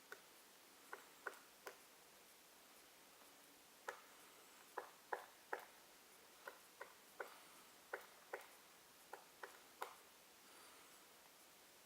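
Black woodpecker pecking at wood: sharp, single knocks at an irregular pace, often two or three close together, about sixteen in all. This is the slow, uneven pecking of a bird chiselling into a branch, not a rapid drumming roll.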